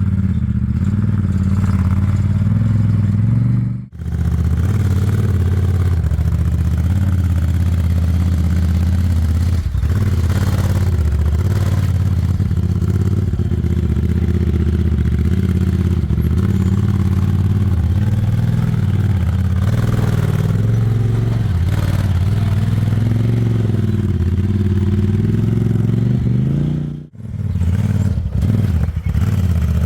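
Honda Talon 1000's parallel-twin engine running under load as the side-by-side climbs a rock obstacle, with a few knocks along the way. The engine sound drops out briefly twice, about four seconds in and near the end.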